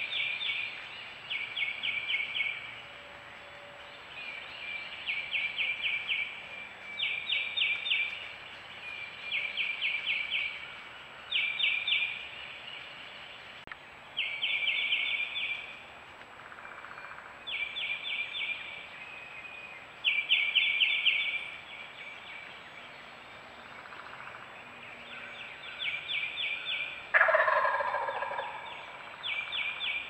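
A small animal calls over and over in a short trilled phrase of about five quick, high notes, repeated every two seconds or so. Near the end there is a single louder, lower call.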